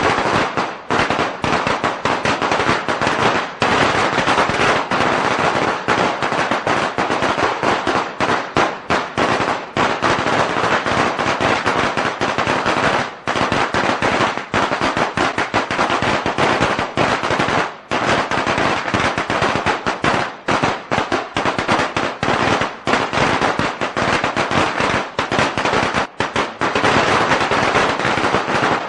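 A long string of Chinese firecrackers going off in a rapid, unbroken stream of loud cracks.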